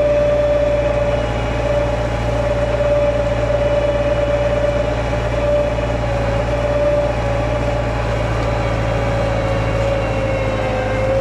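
Tümosan 8280 tractor engine running steadily under load while pulling a four-furrow reversible plough through the soil, with a strong steady whine over the engine that dips slightly in pitch near the end.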